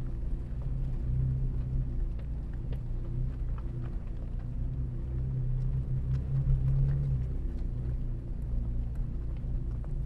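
Off-road vehicle's engine running with a steady low drone as it drives slowly along a dirt trail, swelling a little about six seconds in. Scattered small clicks and knocks from the rough track come through over it.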